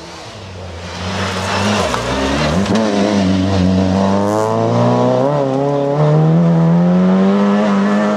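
Rally car's engine revving hard as the car powers past on gravel, getting louder from about a second in. Its note rises and falls through the gear changes.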